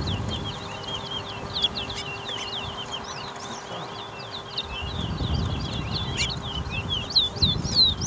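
Towa-towa (large-billed seed finch) singing in a bird race: a fast, unbroken run of short, high, sweeping chirps.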